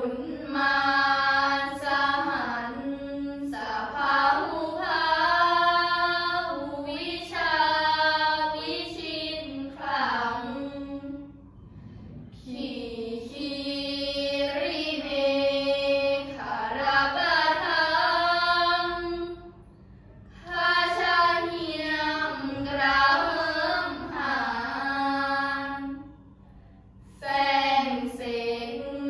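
A group of girls chanting Thai Buddhist prayers in unison, a melodic chant with long held and gliding notes. The chant comes in long phrases, with three short breaks between them.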